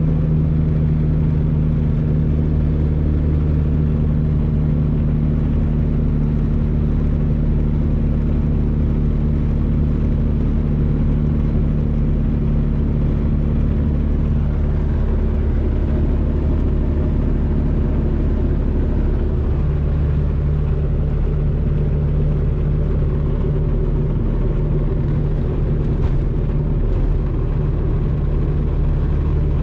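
Supercharged 2.0-litre four-cylinder of a 2005 Chevy Cobalt SS and the road noise, heard from inside the car while driving at a steady pace. The engine's drone changes briefly about halfway through, then settles again.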